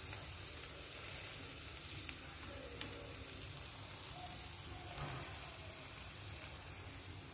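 Potato stuffing sizzling steadily in a non-stick frying pan as it is stirred with a spatula, with a few faint clicks of the spatula against the pan.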